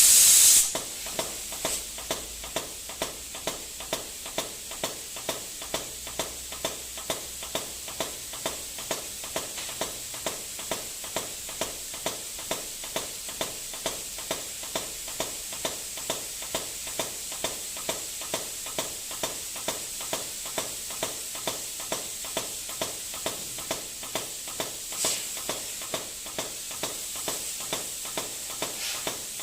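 Minimum quantity lubrication system spraying air-borne lubricant mist with a steady hiss, its positive displacement pump clicking about twice a second as it meters out each small shot of oil. The air comes on with a loud burst of hiss at the start.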